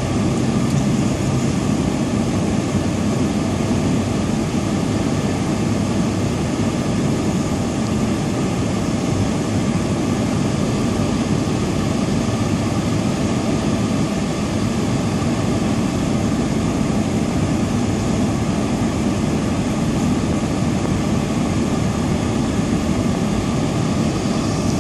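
Steady road and engine noise heard inside a car's cabin while it drives at an even speed: a constant low rumble with no changes.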